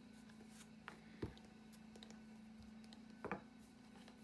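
A plastic rolling pin rolling out modelling clay on a board: mostly quiet, with a few faint clicks and knocks, one a little over a second in and two close together after about three seconds, over a low steady hum.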